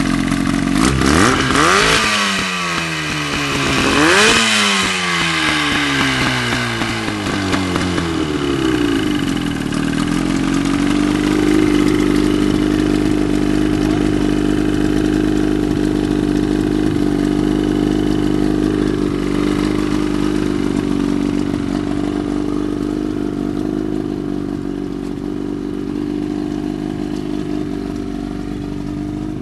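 25-horsepower outboard motor revved twice in quick succession, its pitch rising then sliding back down, then settling into a steady idle.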